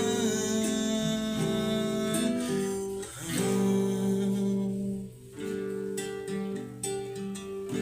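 Acoustic guitar playing an instrumental passage between sung verses, with plucked and strummed chords.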